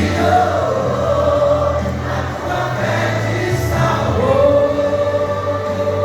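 A group of worshippers singing a gospel hymn in chorus over a steady low bass accompaniment, settling into a long held note about four seconds in.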